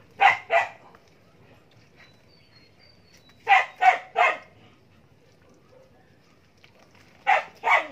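A dog barking in short bouts: two barks, then three about three seconds later, then two more near the end.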